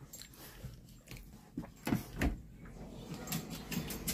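Rustling and soft knocks of a handheld phone being moved, with two sharper knocks about two seconds in.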